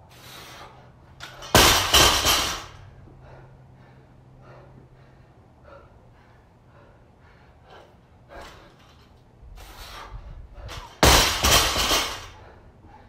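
A 135 lb barbell loaded with rubber bumper plates dropped onto rubber floor mats twice, about nine seconds apart, after squat cleans. Each drop is a loud slam followed by about a second of bouncing rattle.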